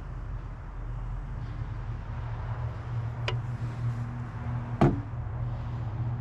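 Steady low mechanical hum, with two sharp clicks, the second, just before five seconds in, the louder.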